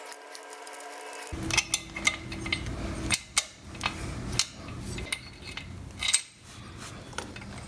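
Metal clinks, taps and scraping as the slackened head bolts of a Harley-Davidson Shovelhead engine are turned out by hand between the cylinder fins. Sharp clicks come at irregular intervals from about a second and a half in. A steady hum is heard before the handling starts.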